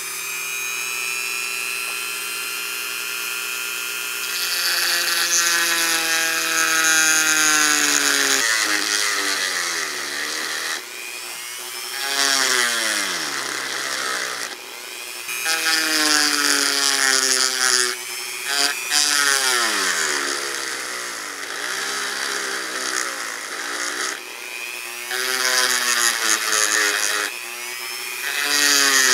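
Dremel rotary tool with a 2.4 mm router bit, run at slow speed, cutting into a soft white metal casting. Its whine is steady for the first few seconds, then grinds with a hiss on top and repeatedly drops in pitch and climbs back as the bit bites into the metal and is eased off.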